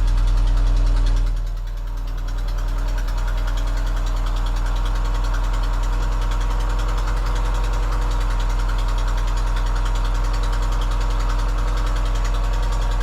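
Car engine idling steadily, dipping briefly about a second and a half in and then running on evenly, while it is checked for an exhaust leak.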